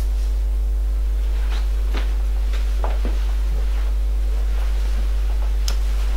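Steady low electrical hum, a mains hum with a ladder of overtones, carried on the recording. A few faint light taps sound over it.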